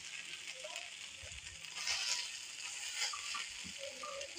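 Mutton pieces sizzling faintly on a hot tawa griddle as they are turned with metal tongs, with a few light clicks and scrapes from the tongs. The sizzle swells briefly about two seconds in and again near three seconds.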